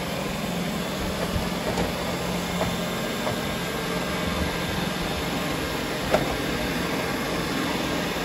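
Robot vacuums, an iRobot Roomba and a Neato, running over a hardwood floor: a steady whir of suction motors and brushes, with a single light knock about six seconds in.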